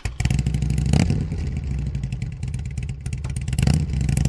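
Motorcycle engine running at idle, with two brief throttle blips: about a second in and near the end.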